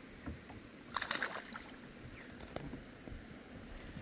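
Water splashing and sloshing against a kayak, with a louder burst of splashing about a second in, from a hooked smallmouth bass being brought alongside.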